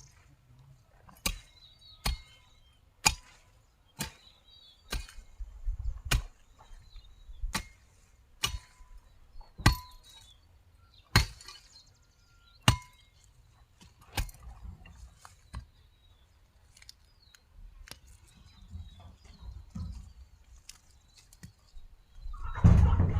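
A hand weeding tool chopping into soil and weeds with regular strikes, about one a second, that grow sparser about halfway through. A louder burst of sound comes near the end.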